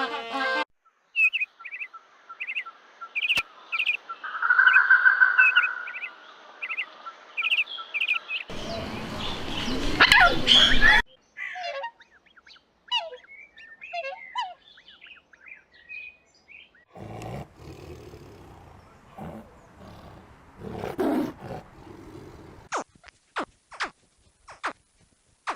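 A run of different animal calls one after another: a bird chirping repeatedly, then a loud rough call about eight seconds in, more scattered chirps, another noisy call, and a row of quick sharp clicks near the end.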